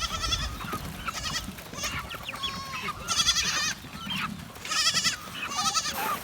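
Goats bleating repeatedly: about six separate wavering calls, each roughly half a second long.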